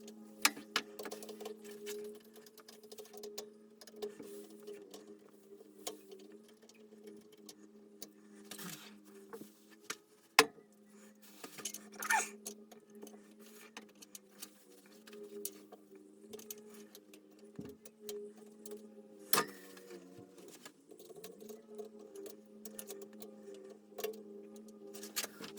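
Scattered sharp clicks and light knocks of hand tools and metal parts being handled during pump and tank wiring work, the loudest about ten seconds in, over a steady low hum.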